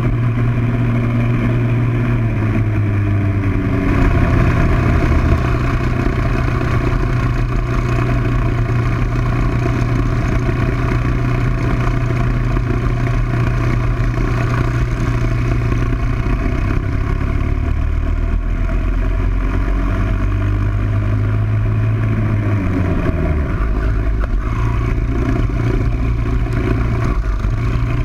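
Kart's Briggs & Stratton World Formula single-cylinder four-stroke engine running hard at racing revs. The engine note drops and picks up again twice as the kart slows for corners and accelerates out.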